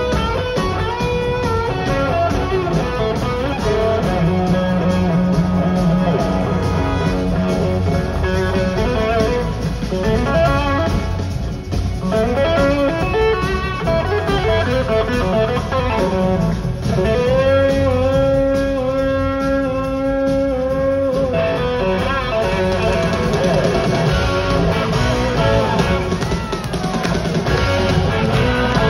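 Live electric blues-rock band, heard from the audience, with an electric guitar leading. Its lines include long held notes and gliding slide-guitar pitches over the rest of the band.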